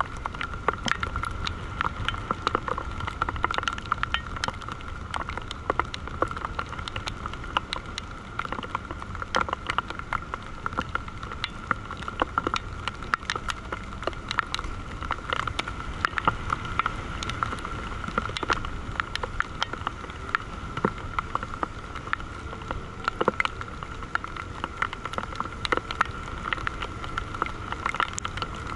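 Wind buffeting the microphone of a camera on a parasail harness in flight, with a steady high whistle and irregular crackling clicks all through.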